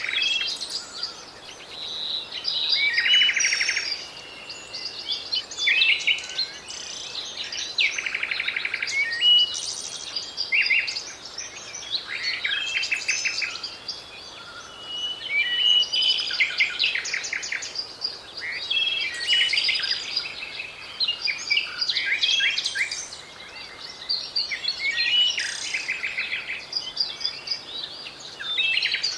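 Several songbirds singing and chirping over one another in short phrases and quick trills.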